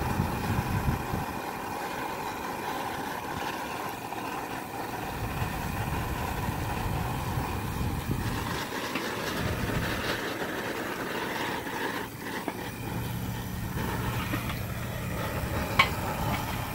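Outdoor propane burner running steadily at full flame under a steel wok, heating it to burn off the factory oil coating. A single sharp click comes near the end.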